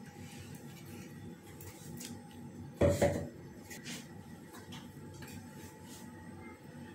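Kitchenware set down with a single clunk about three seconds in, with a few faint clinks around it.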